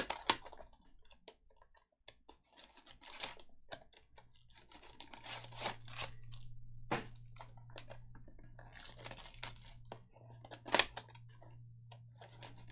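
Trading cards and foil pack wrappers being handled: irregular clicks, rustles and crinkles. A steady low hum comes in about four seconds in.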